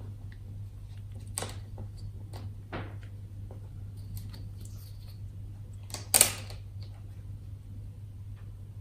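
Thin plastic cover strip being handled and pressed onto a computer screen's bezel: scattered light clicks and scrapes, the loudest about six seconds in, over a steady low hum.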